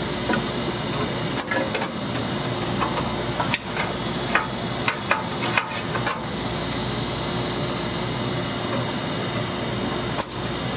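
Scattered sharp metallic clicks and taps as a screw and a metal plate are handled and fitted inside a dryer cabinet, over a steady machine hum.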